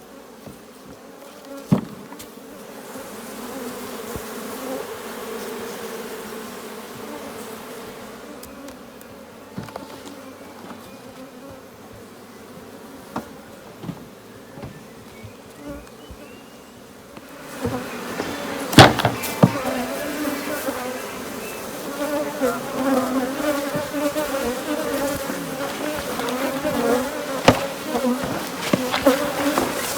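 Swarm of honey bees buzzing steadily as butyric acid fumes from a fume board drive them out of the honey supers. The buzz swells louder about halfway through, and a few sharp knocks sound over it.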